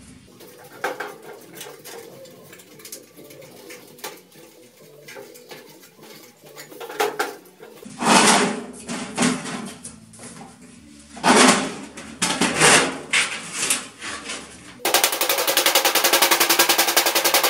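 Galvanized sheet metal being worked by hand, with light clicks and crinkles as the dovetail tabs of a round takeoff collar are bent over, then several louder metallic knocks. Near the end, a fast, even rattle of strikes.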